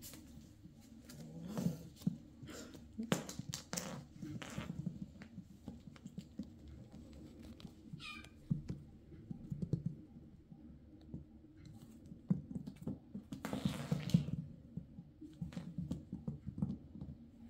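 Bengal kittens pouncing and scrambling on a plywood floor after a feather wand toy: an irregular run of soft paw thumps and scuffs with a few sharp taps, and a louder rushing scramble about fourteen seconds in.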